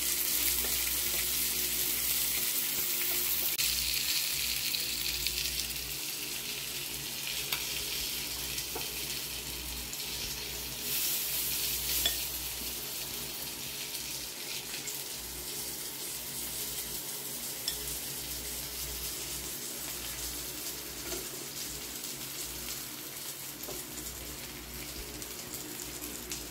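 Quail pieces sizzling steadily as they fry in a pan, with a few light clicks, growing slowly quieter.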